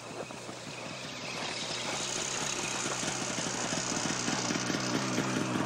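Snowmobile engine running with a rapid, even pulse, growing gradually louder.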